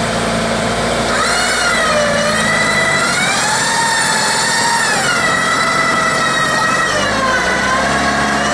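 Land Rover Defender running, with a steady low engine note. From about a second in until near the end, a high whine slowly rises and falls in pitch several times over it.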